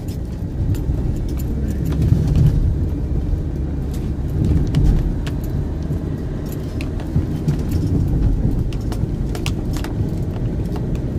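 Van driving along a road, heard from inside the cab: a steady low engine and tyre rumble, with scattered light clicks and rattles.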